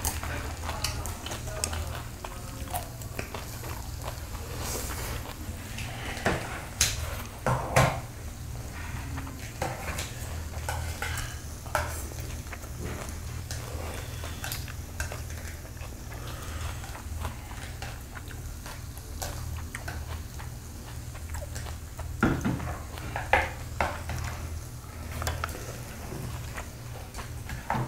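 Chopsticks and a spoon clicking and scraping against stainless steel bowls and dishes during a meal, in scattered clicks that cluster twice, over a steady low hum.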